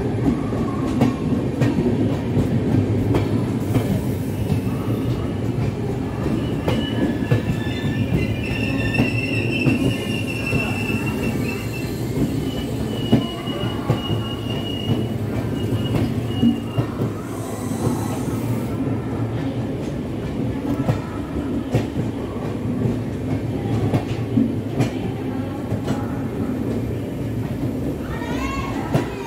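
LHB passenger coaches rolling past on the adjacent track, their wheels rumbling steadily and clicking over rail joints. A high-pitched wheel squeal comes in about six seconds in and lasts some ten seconds, with a brief wavering squeal again near the end.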